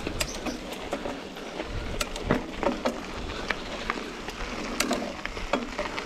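Mountain bike rattling over a rough dirt trail: irregular knocks and clatters over a steady rush of tyre and wind noise.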